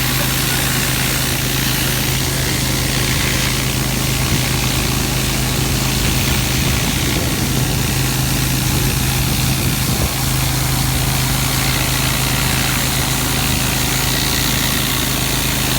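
Hot-water pressure washer running steadily at 3,000 PSI: a constant engine hum under a dense hiss of high-pressure water from a surface cleaner working concrete. It dips briefly about ten seconds in.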